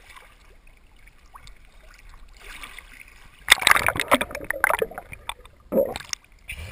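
Camera plunged into a river pool: faint water lapping, then about three and a half seconds in a loud, crackling burst of splashing and bubbling as it goes under, lasting over a second. Shorter splashes and gurgles follow as it comes back up near the end.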